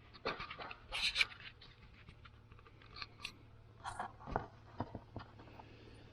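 Light scrapes, taps and clicks of hand work on a screwdriver at a workbench, scattered irregularly and loudest about a second in, over a faint steady hum.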